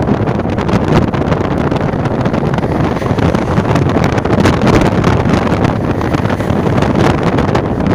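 Wind buffeting the microphone and steady road noise from a car driving at speed on a highway, with the camera held out at the car's side window.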